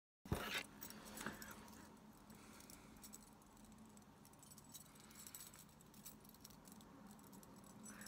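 Metal wire disentanglement puzzle being worked in the hands: faint, scattered metallic clinks and jingles as the wire pieces knock together, with a sharper click about a quarter-second in.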